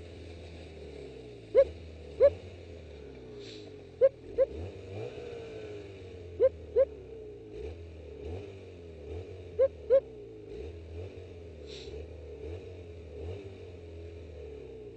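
Snowmobile engine running at low, varying speed. Four pairs of short, loud rising pitched sounds sit over it, each pair about half a second apart.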